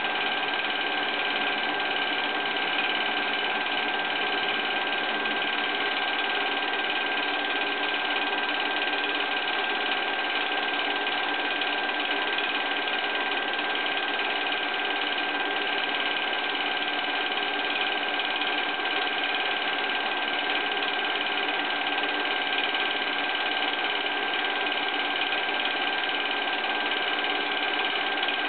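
Film projector running steadily: a continuous mechanical hum with a high, steady whine over it.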